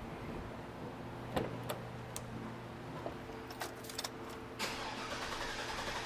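Hummer H2's 6.0 L V8 engine running at idle, a steady low hum with a few light clicks, the engine misfiring on a cylinder. About four and a half seconds in there is a knock and the engine sound grows louder.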